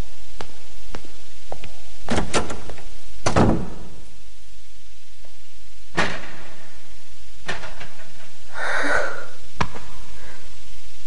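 Irregular sharp knocks and thuds, the heaviest about two and three and a half seconds in, with lighter taps between and a short breathy sound near the end.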